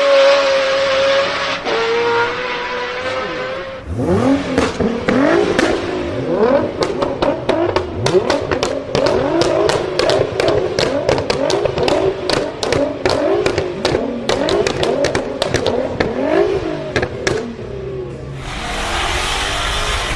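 A performance car's engine holds a steady high-revving note that drops in pitch about two seconds in. From about four seconds in it is blipped up and down in quick revs, with a rapid string of sharp exhaust pops and crackles on the overrun. Near the end a rushing noise takes over.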